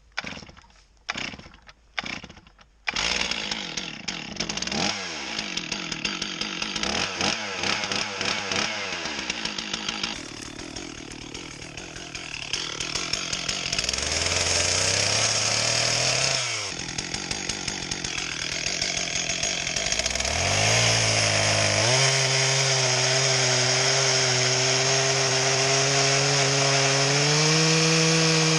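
Two-stroke Stihl chainsaw being pull-started: three short sputters, then it catches about three seconds in. It is revved up and down several times, then held at steady high revs from about three-quarters of the way through, the pitch stepping up slightly near the end.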